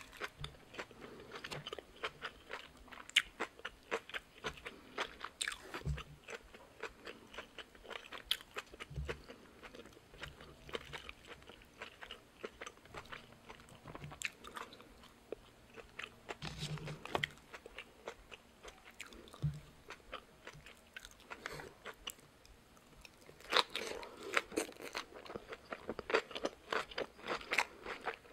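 Close-miked chewing and biting of napa cabbage leaf wrapped around boiled pork: a steady run of small crisp crunches, busiest near the end.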